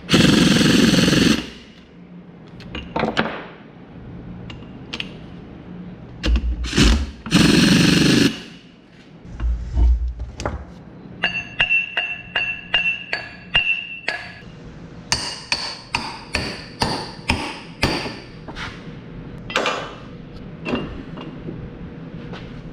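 Two bursts from a pneumatic air tool on a disc mower's steel drive pod, each about a second and a half long. Then a run of hammer blows on the steel parts, about two a second, each ringing, and later more scattered strikes.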